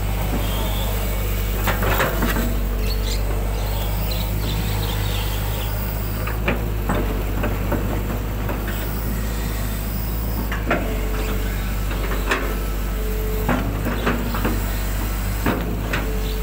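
Hitachi 120 excavator's diesel engine running with a steady low drone as it digs mud from a ditch, heard from the operator's cab. Scattered sharp knocks and clanks come from the working arm and bucket, with a higher tone that comes and goes.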